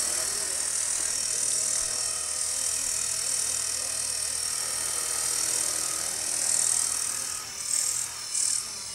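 Electric RC helicopter flying indoors: a steady high whine from the motor and rotors, with a lower hum that wavers up and down in pitch as it hovers.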